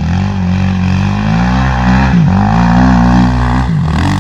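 Suzuki LTR 450 quad's single-cylinder four-stroke engine working through mud, its revs dropping briefly and climbing again a few times.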